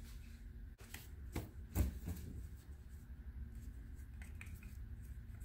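A few light clicks and knocks of small plastic cups being handled, the loudest about two seconds in, then a couple of fainter ticks.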